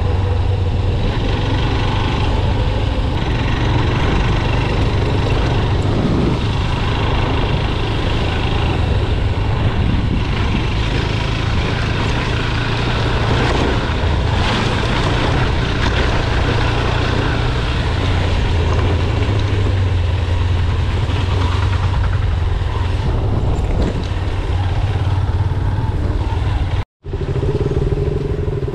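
Motorcycle engine running steadily while riding, a loud low drone under broad road noise. The sound drops out for an instant near the end, then resumes with a steadier, higher tone.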